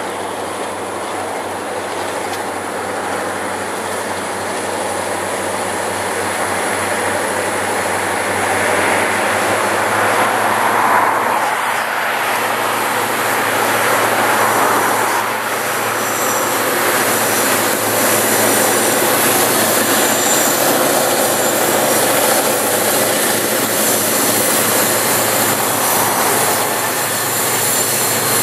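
Diesel freight locomotives working under load as they approach, their engine sound growing louder over the first ten seconds, then staying loud as the lead units pass close by near the end.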